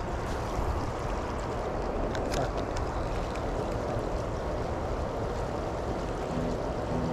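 Steady rush of stream water pouring over a small concrete spillway, with a deep rumble underneath. A few light ticks come about two seconds in.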